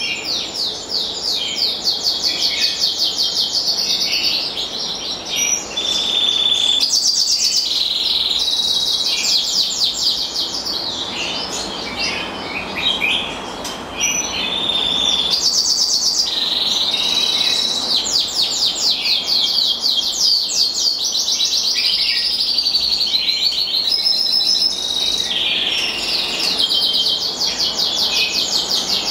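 Black siskin mule, a black siskin × canary hybrid finch, singing a long, almost unbroken song of rapid high trills and twittering notes, pausing only briefly now and then.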